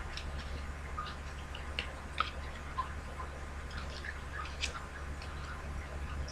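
Scattered faint clicks and light taps at an irregular pace, over a steady low hum.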